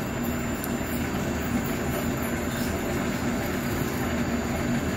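Welly S-3 grain puffing machine running steadily, its motor and extrusion screw turning in the start-up phase as puffed brown rice begins to come out: a constant mechanical hum and rumble.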